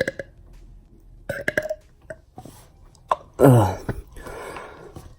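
A young man burping after gulping a whole bottle of fizzy soda: a short burp about a second and a half in, then a louder, longer burp about three and a half seconds in that drops steeply in pitch, followed by about a second of breathy noise.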